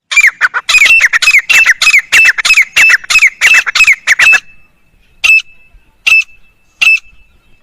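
Francolin (teetar) calling: a fast run of loud, high-pitched notes, several a second, each sliding downward, for about four seconds, then single notes spaced under a second apart.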